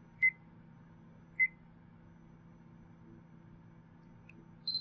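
Short electronic beeps from the Sony Vaio Jog Dial menu as it is scrolled with the Jog Dial remote. There are two lower beeps about a second apart near the start, then one higher beep near the end as a menu item is selected.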